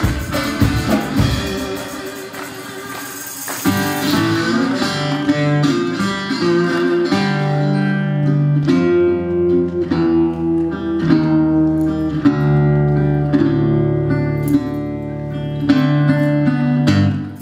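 Instrumental blues guitar break. For the first few seconds busy guitar playing runs over a low beat. From about four seconds in a metal-bodied resonator guitar is played with a bottleneck slide: sustained ringing notes, some sliding between pitches.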